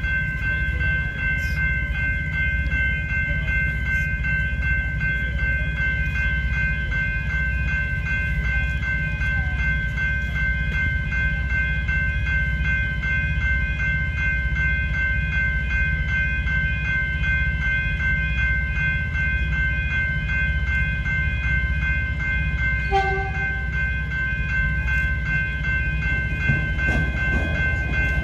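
Railway level crossing warning bells ringing in a fast, steady repeat while the crossing is active for an approaching train, over a low rumble. A short horn note sounds once about 23 seconds in, and the train's approach grows louder near the end.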